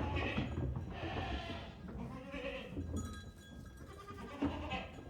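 A herd of goats on the move, bleating three times in the first three seconds over a steady low shuffling rumble, with a couple of sharp knocks near the end.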